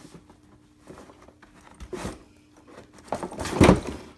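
Clarinet case being pulled out of a cardboard box, its fabric and the cardboard rubbing and scraping. There is a short scrape about two seconds in and the loudest, longest scrape from about three seconds in.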